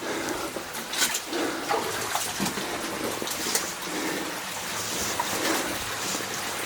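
Water sloshing and splashing as a person wades through muddy water in a flooded mine tunnel, with uneven splashes from each step.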